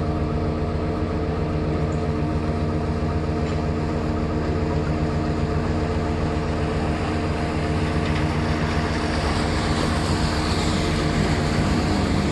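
Diesel engine of a vaporetto (Venetian water bus) running steadily with a low, even hum. From about eight seconds in, a rushing sound of churning water swells louder alongside it.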